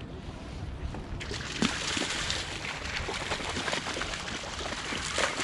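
Shallow water sloshing and splashing, with many small crackling splashes. It gets louder about a second in.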